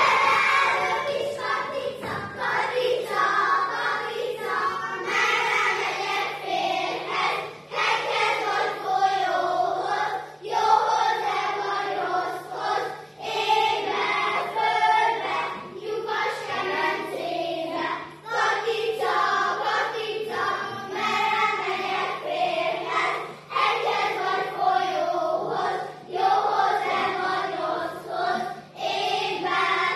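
A group of children singing a folk song together, in short phrases with brief breaks between them.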